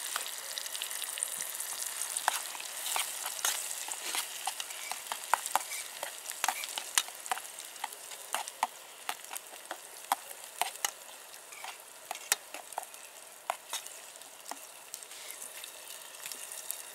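Onion half-rings frying in oil in a pan set on red-hot campfire coals, sizzling steadily as they are stirred. Scattered sharp clicks run throughout.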